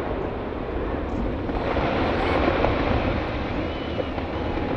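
Loud, continuous low rumble from the explosive demolition of a tall concrete power-station chimney as it collapses after the charges have fired.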